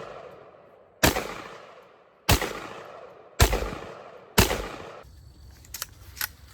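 Four gunshots about a second apart, each with a long echoing tail, followed by a few light clicks near the end.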